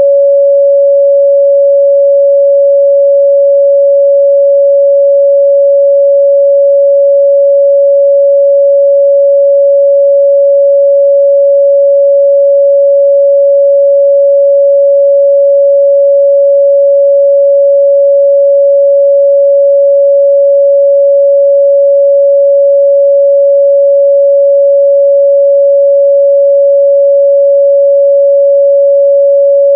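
Pure 561 Hz sine-wave test tone, steady and loud at a constant pitch and level, with no other sound.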